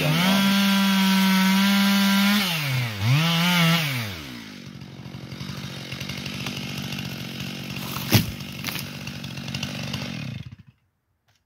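Stihl 441 two-stroke chainsaw held at full throttle, dropping off and revving once more, then settling to a rough idle about four seconds in. A single sharp knock sounds about eight seconds in, and the saw cuts off shortly after ten seconds.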